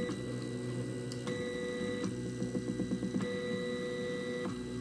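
3D printer with a pen mounted on its print head, drawing straight lines: its stepper motors whine in steady tones that jump to a new pitch at each change of direction, about every second. A stretch of fast rattling ticks comes just before the middle.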